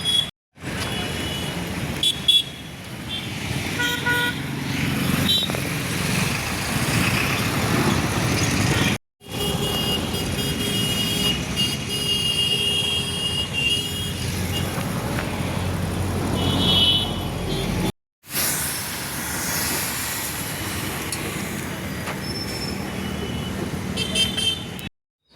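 Busy road traffic with vehicle horns honking repeatedly, short high toots and one deeper horn blast, over a steady traffic roar. The sound cuts out abruptly three times.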